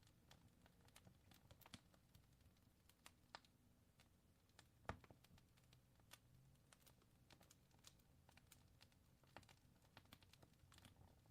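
Fire crackling faintly: scattered, irregular small pops and snaps, with one sharper pop about five seconds in.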